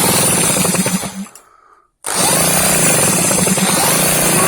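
Power drill running, driving the small two-stroke generator engine over to show its reed valves working. It runs for about a second and a half, stops, then starts again sharply about two seconds in and keeps running.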